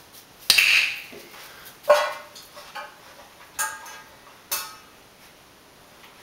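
Stainless steel dog food bowl clanking four times as a rottweiler puppy eats from it, each clank ringing briefly.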